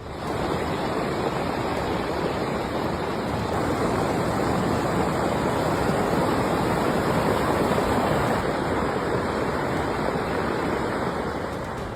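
Floodwater rushing in a flash flood: a steady, dense wash of water noise with no break.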